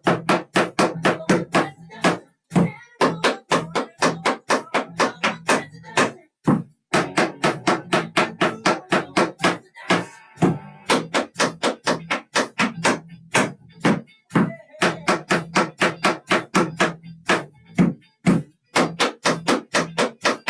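Metal taps on tap shoes striking a wooden board in quick rhythmic patterns, about four sharp clicks a second, with short breaks every few seconds.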